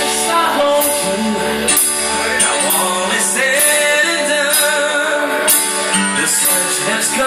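Live band music: a man singing lead vocals into a microphone over electric guitar and drums with cymbals.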